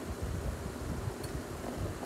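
Steady rushing of an electric room fan, its airflow buffeting the microphone with uneven low rumbling.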